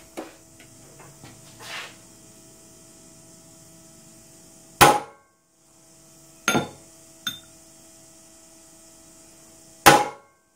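Hammer striking a centre punch on a metal tube, marking hole centres ready for drilling: four sharp metallic taps a second or two apart, the third one lighter.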